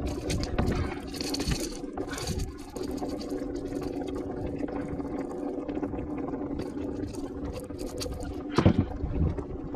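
Water sloshing and splashing around a kayak, with scrapes and knocks from handling on the hull; a sharper knock comes near the end.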